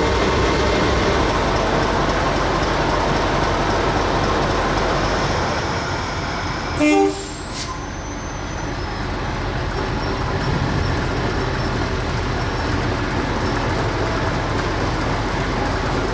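English Electric-built Di-class diesel-electric locomotive's diesel engine running steadily, with a short horn toot about seven seconds in. After the toot the engine sound slowly grows as the locomotive moves slowly under its own power.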